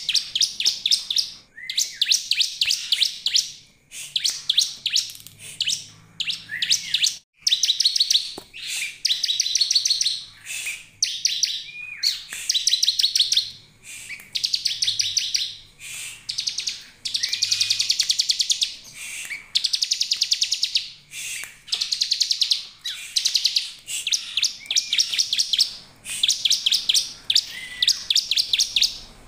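Bar-winged prinia (ciblek) calling: rapid, buzzy trilled phrases, each about a second long, repeated over and over with short gaps, some opening with a short rising note.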